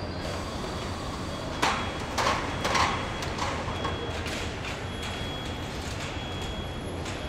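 Car assembly plant floor ambience: a steady industrial hum. A few sharp clanks come between about one and a half and three seconds in, and faint short high beeps come and go.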